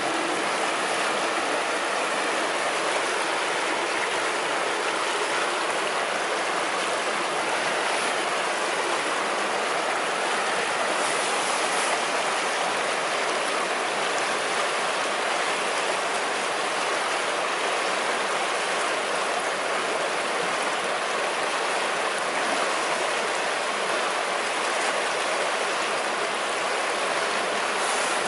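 River water rushing and babbling over stones in a steady, unbroken wash of noise.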